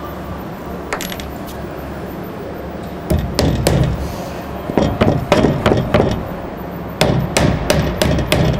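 Hammer tapping finishing nails through a wooden door casing into the door jamb: quick, light, repeated strikes in three runs, starting about three, five and seven seconds in.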